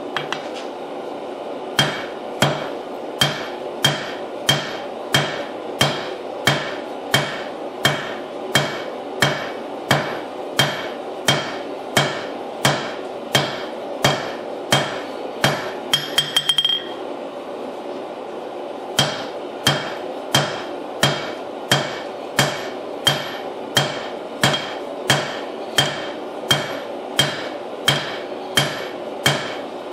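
Steady hammer blows on a white-hot damascus billet on the anvil, about three every two seconds, each with a short metallic ring. This is forge-welding the layers together again where they had started to separate. About halfway through there is a quick run of light taps, then a short pause, and then the steady blows resume.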